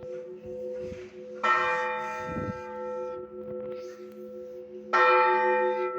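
Russian Orthodox church bell struck twice, about three and a half seconds apart, as in the slow single-bell blagovest. Each stroke rings on in a long hum that carries through to the next stroke.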